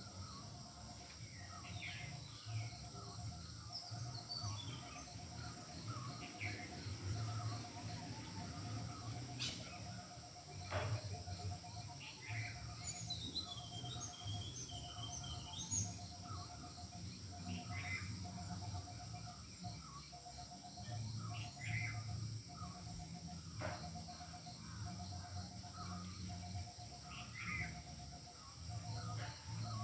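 Birds chirping and calling in short, scattered notes, with one call repeating as a quick pulsed trill about once a second. A steady high whine and a low rumble run underneath.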